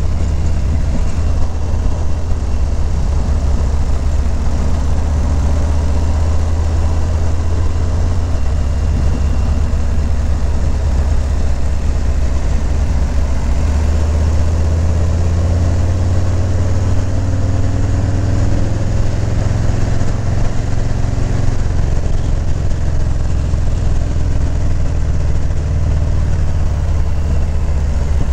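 Harley-Davidson Low Rider S V-twin engine running under way on the road. Its pitch rises and falls a little about halfway through.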